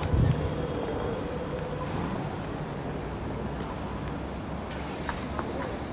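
Steady city street traffic noise with a car moving slowly close by, plus footsteps on the pavement and a few light clicks about five seconds in.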